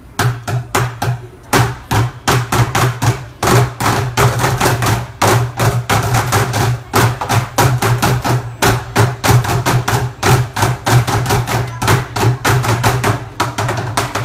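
A group of drummers striking drums together in a fast, driving rhythm, with many sharp hits every second.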